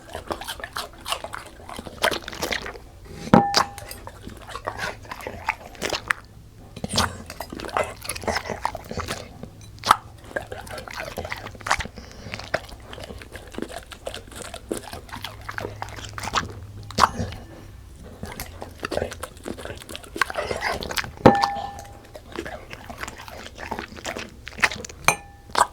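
Golden retriever chewing and crunching food, a dense run of irregular crunches and bites, with a short ringing tone twice.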